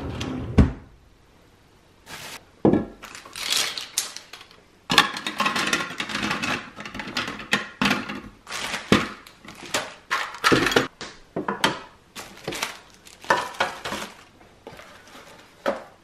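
Hard clear plastic drawer organizers and marker pens clattering and clicking as they are handled and set down in a kitchen drawer, after a knock near the start as the drawer slides open.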